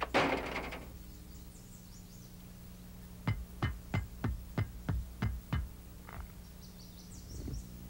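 Footsteps of high-heeled shoes on concrete steps: about eight quick, evenly spaced clicks in the middle, over a steady electrical hum. A short noisy burst comes right at the start.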